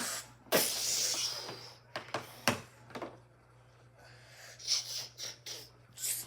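A child's breathy mouth sound effects: hissing blasts and puffs of air, like a pretend laser blaster, with a few sharp clicks or taps between them.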